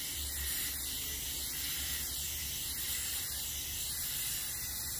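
Aerosol spray can of primer spraying in one long, steady hiss as a coat goes onto small trim pieces.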